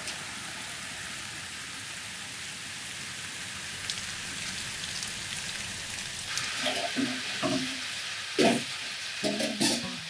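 Steady rain falling, an even hiss. In the last couple of seconds a few louder knocks break through it.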